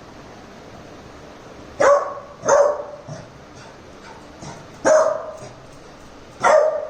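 Labrador puppy barking: four loud barks, two close together about two seconds in, one about five seconds in and one near the end, with a few softer barks between them.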